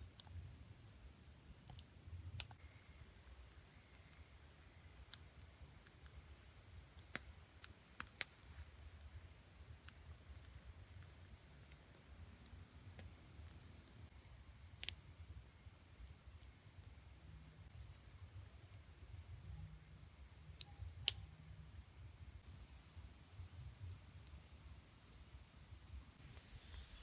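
Insects chirping in a fast, pulsing high trill, with a few faint sharp clicks scattered through.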